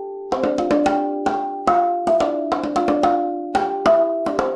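A quick melody played with mallets on a rack of empty plastic soda bottles, each strike a hollow knock that rings briefly on its own pitch.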